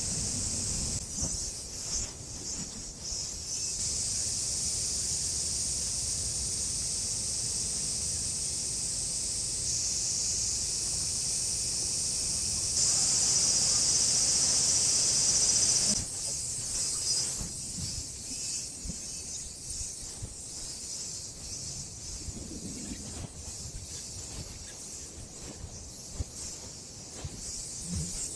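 A steady, high-pitched chorus of insects, louder for a few seconds past the middle and fainter after that.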